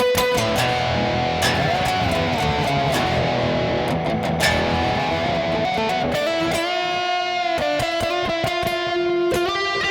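Electric guitar played through an effects pedal board: strummed chords, then held single notes with a bend and vibrato about two-thirds of the way through, ringing out.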